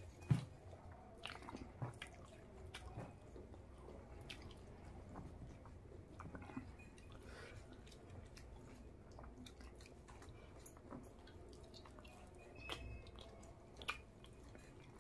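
Close-miked chewing of rice and curry, with the wet sounds of a hand mixing rice into curry and scattered short clicks of the mouth and fingers, the sharpest about half a second in and again near the end.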